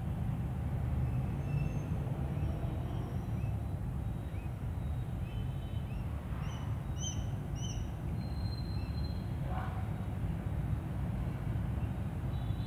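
Steady low background rumble with small birds chirping faintly, a run of short chirps about six to eight seconds in, and a brief soft rustle near the end.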